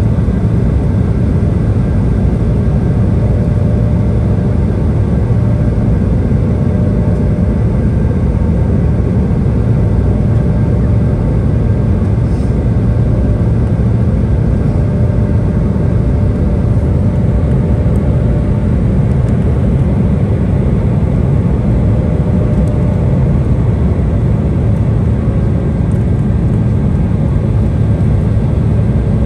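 Steady cabin noise of an Embraer 175 regional jet, heard from a window seat over the wing: a low rumble of airflow and its two GE CF34-8E turbofan engines, with a faint steady hum above it.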